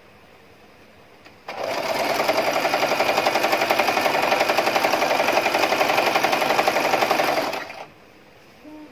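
Domestic sewing machine stitching a seam through fabric: it starts about a second and a half in, runs at a steady, fast stitching rhythm for about six seconds, then stops.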